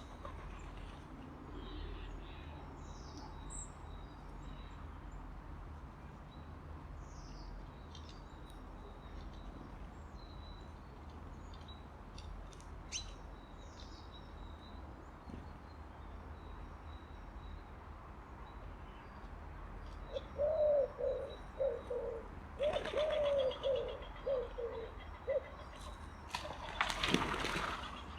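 Pigeon cooing in a run of low notes starting about twenty seconds in, followed near the end by a loud clatter of flapping wings. Faint high chirps of small birds come earlier.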